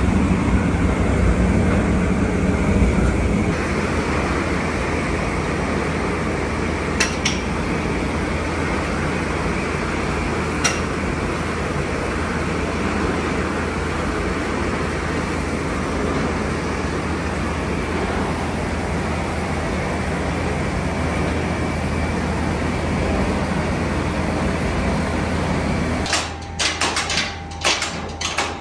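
Steady machinery noise with a low hum, with two sharp clicks partway through; near the end it gives way to a run of quick knocks.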